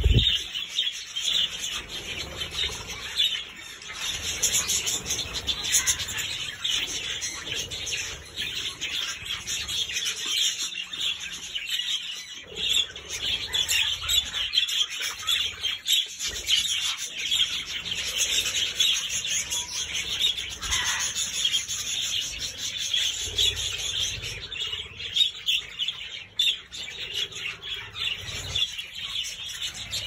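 A flock of budgerigars chattering and chirping without a break. A short rush of wing flutter comes right at the start as a budgie flies close past.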